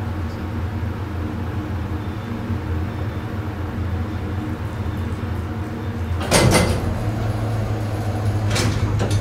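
Old 1970s Fujitec elevator running with a steady low hum. About six seconds in there is a loud clunk and rattle, and a lighter clunk about two seconds later, as the car stops and its sliding doors work.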